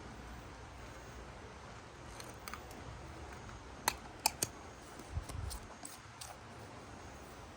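Quiet handling sounds: three sharp clicks close together about halfway through, then a soft low knock and a few lighter clicks.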